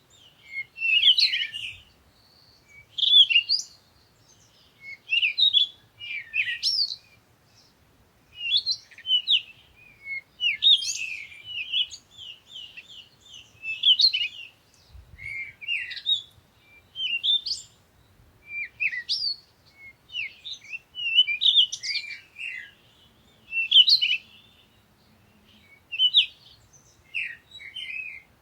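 Several small songbirds chirping and singing in short, high-pitched phrases, one after another every second or two.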